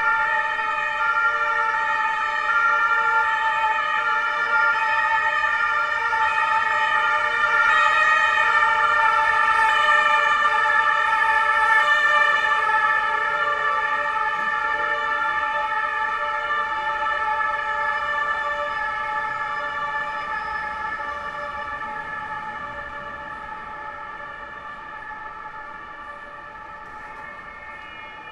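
Berlin police vehicle's two-tone siren sounding, its tones alternating. It is loudest around ten seconds in, then fades steadily.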